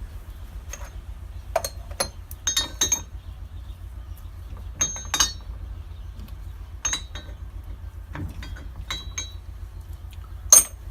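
Metal hand tools clinking as they are picked up, tried on a part and put down: a dozen or so irregular sharp clinks with a brief ring, the loudest near the end.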